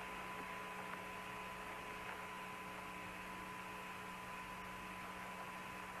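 Steady radio-link static from Apollo lunar-surface transmission audio: an even hiss with a thin steady tone and a low hum underneath. There are a couple of faint ticks but no knocks or bangs.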